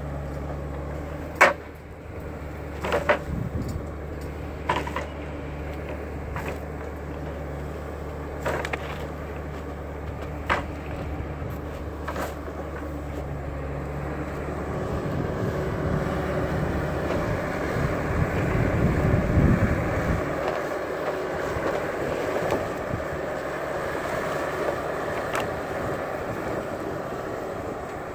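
Timberpro 840B forwarder's diesel engine running steadily, with about six sharp knocks in the first half. From about halfway it grows louder and rougher, peaking a few seconds later and then easing back.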